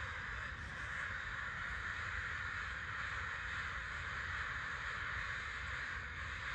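A group of crows cawing together, many calls overlapping into a steady din.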